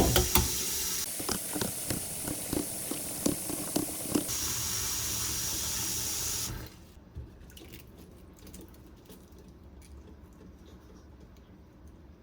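Water running from a tap, with a few knocks of things being handled under it. The water is shut off suddenly about six and a half seconds in, and only faint small clicks follow.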